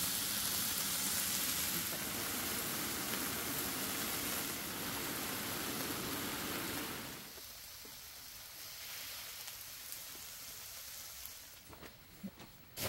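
Beef short ribs sizzling on a hot griddle pan, a steady hiss that drops away about seven seconds in. A quieter steady hiss of rain on the tent follows.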